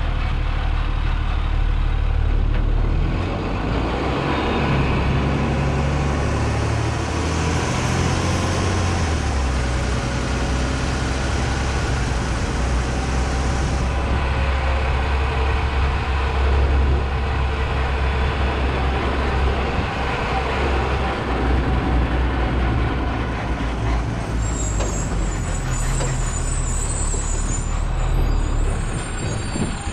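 Automated side-loader garbage truck's engine running as the truck drives between stops. The engine note steps up and down with speed, and a high hiss comes near the end.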